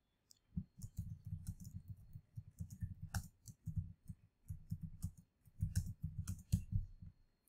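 Typing on a computer keyboard: a run of quick, irregular keystrokes starting about half a second in and stopping shortly before the end.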